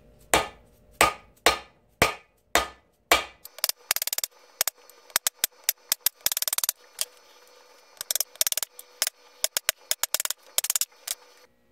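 Hammer blows on an aluminum bearing driver, tapping the rotor-shaft bearings into a 6-71 blower's rear bearing plate until they seat against the shaft shoulder. There are six sharp, ringing strikes about two a second, then a long run of quicker, lighter taps and clicks.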